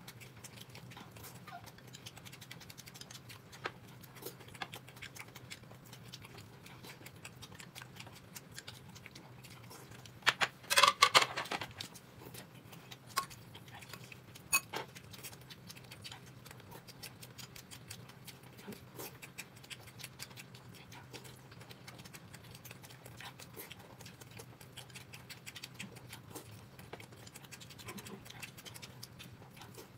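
Close-miked eating: a person chewing dumplings dipped in chili sauce, with scattered small clicks and ticks of mouth and tableware, over a faint steady hum. A brief, much louder cluster of sounds comes about ten and a half seconds in.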